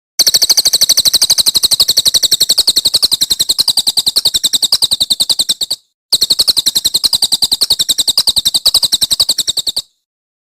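A songbird's rapid, high-pitched trill of sharp repeated notes, about a dozen a second. It comes in two long runs of roughly five and a half and four seconds, split by a brief break.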